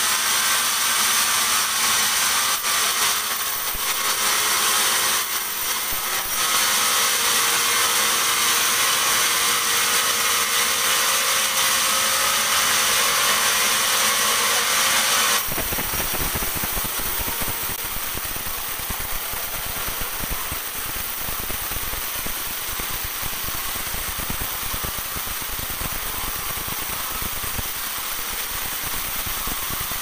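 Large band sawmill ripping a dry teak log into boards: a steady, loud hiss of the blade cutting through the wood. About halfway through the sound changes abruptly to a duller, lower rumble with less hiss.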